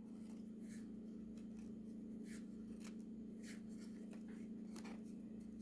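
Faint scratchy rustles and light ticks of trading cards being handled and slid against one another, a few times over a steady low hum.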